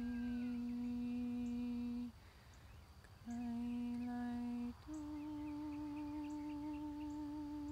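A woman humming long, steady held notes as light language toning. One note lasts about two seconds, there is a short break, and a second note comes at the same pitch. A slightly higher note with a gentle waver is then held on.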